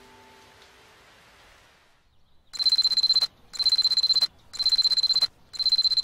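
Alarm clock ringing: a high, rapidly trilling beep in repeated bursts about a second apart, starting about two and a half seconds in. It follows a few seconds of near quiet as a held musical note fades out.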